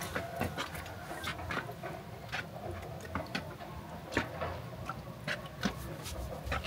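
Water lapping and dripping with small irregular ticks and taps as a metal gold pan is tilted and swirled over a basin of water.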